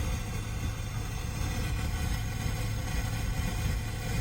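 Steady low rumble of the Range Rover's engine running, heard from inside the cabin.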